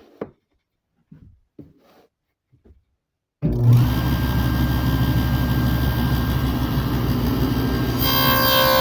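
A few faint handling knocks, then a woodworking power tool set up for cutting dados switches on suddenly about three and a half seconds in and runs steadily with a deep hum, ready to cut a test dado in scrap wood. Near the end its sound gets a little louder and takes on clearer high tones.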